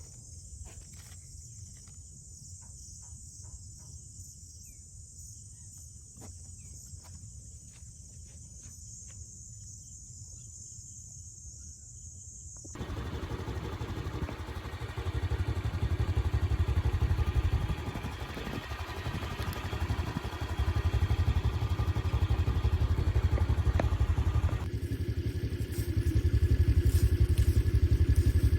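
Faint steady high-pitched outdoor hiss with a few soft clicks, then, a little under halfway, a cut to a vehicle engine running with a low rumble that swells and dips.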